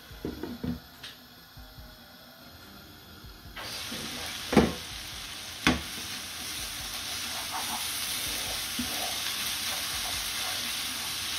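Chicken and vegetable stir fry sizzling in a wok, stirred with a wooden spatula. After a few light clatters near the start, the sizzle starts abruptly about three and a half seconds in. Two sharp knocks follow, then small scrapes of the spatula against the pan.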